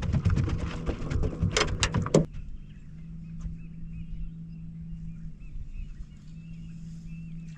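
Knocks and clatter on a small fishing boat for about the first two seconds, then a steady low hum with small birds chirping over and over.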